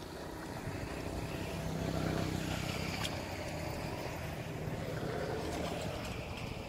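An engine running steadily, swelling a little louder about two seconds in and then holding.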